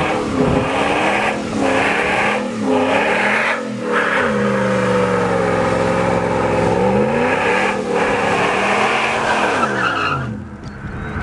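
Hemi V8 pickup truck doing burnout donuts: the engine revs up and down while the spinning rear tires squeal and screech. The noise dies away near the end.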